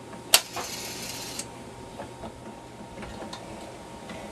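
Old telephone being handled: a sharp click, then a short mechanical whirr lasting about a second, followed by a few lighter clicks.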